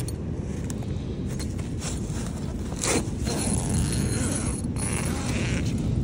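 Zipper on a nylon tent door being pulled open, with the tent fabric rustling; the sharpest zip comes about three seconds in.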